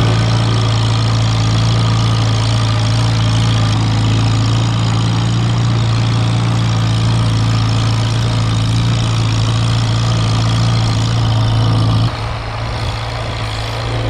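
Farmall Super A tractor's four-cylinder gasoline engine running at a steady speed while pushing snow, heard close up from the driver's seat. About twelve seconds in it becomes quieter and more distant.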